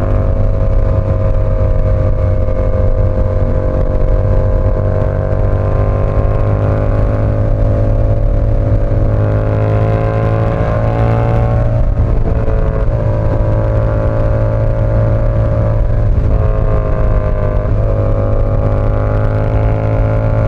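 Yamaha R7's parallel-twin engine running under way at a steady cruise. Its pitch climbs slowly, drops sharply about twelve seconds in, then dips a little twice more.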